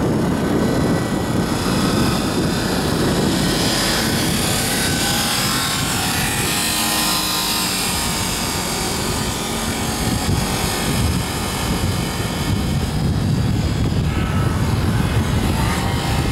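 Wind buffeting an outdoor microphone in a steady, uneven rumble, over a faint continuous mechanical whir.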